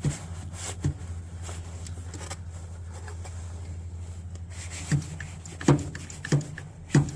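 Hydraulic crimping tool pressing a lug onto a battery cable: a steady low hum that stops about seven seconds in, with a few sharp clicks and knocks from the tool and lug.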